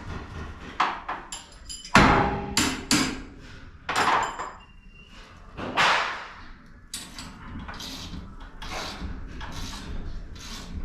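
Hand tools and metal garage door hardware knocking and clanking, some strikes ringing briefly, with scraping and rattling strokes in between.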